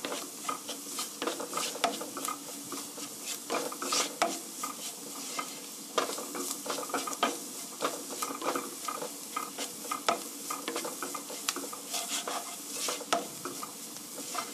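Wooden spatula scraping and stirring diced onion, garlic and carrot through flour in a frying pan, over a steady sizzle of frying. The flour is being toasted with the vegetables to thicken a sauce.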